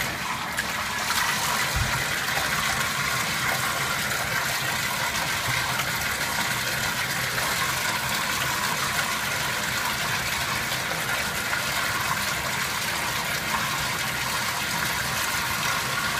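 Bathtub faucet running steadily, a constant rush of water into the tub.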